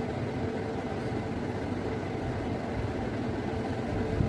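Steady low mechanical hum with a faint held tone, with one soft knock near the end.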